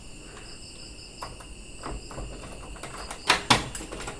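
Steady high chirping of insects, with two sharp knocks close together about three seconds in.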